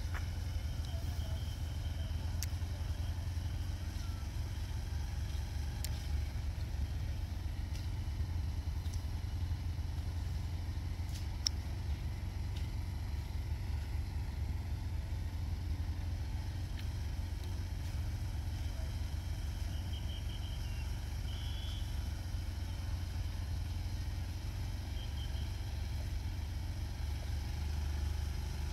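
Steady low rumble, with a few faint short high chirps, mostly in the second half.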